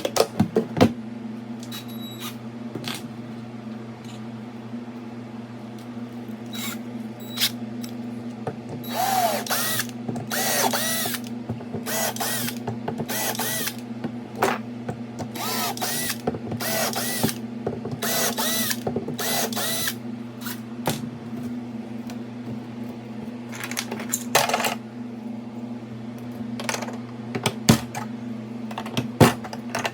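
A power drill runs in about nine short bursts, most of them close together through the middle of the stretch and one more later on, with sharp clicks and knocks of handling in between. A steady low hum sits underneath.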